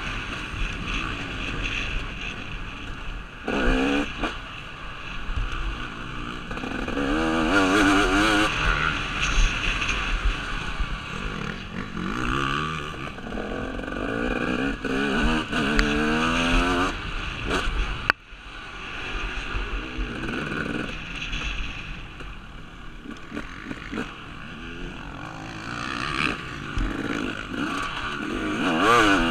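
KTM 250 SX two-stroke motocross engine being ridden hard, revving up and falling away again and again through the gears. The throttle drops sharply once, about two-thirds of the way in.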